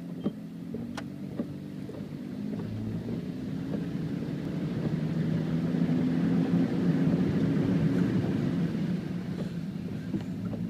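Car engine running steadily while driving through a flooded road, with a rushing wash of water that grows louder towards the middle.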